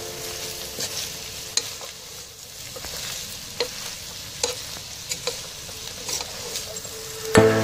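A wooden spatula stirring chicken, cauliflower and carrots in a hot pan, over a steady sizzle, with sharp knocks of the spatula against the pan about once a second. Music comes in loudly just before the end.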